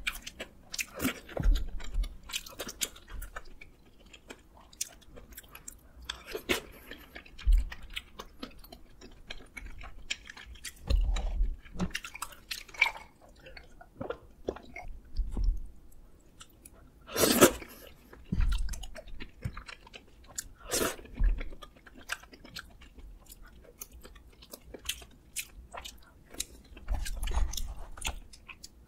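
Close-miked chewing of rose tteokbokki and seaweed rice ball: wet, soft mouth sounds with light crunches, coming in irregular bites with short quiet gaps. A few sharper clicks stand out, the loudest about 17 seconds in.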